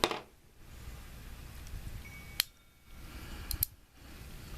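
Sharp small metallic clicks from handling a stainless steel .38 Special derringer during cleaning and oiling: one at the start, one about halfway, and a quick double click near the end.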